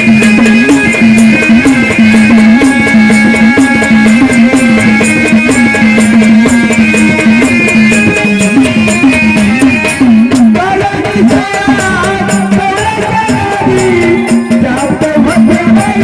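Marathi Waghya-Murali devotional folk music: a dense, steady beat of percussion and rattle strokes under a sustained, wavering melodic line. About ten seconds in the melody shifts to a new phrase.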